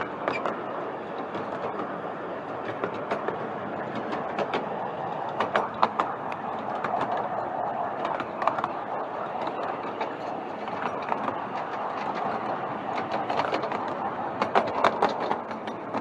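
Ride-on miniature railway train running along its track, heard from aboard: a steady rumble of wheels on rail with irregular clicks and clacks as the wheels cross rail joints.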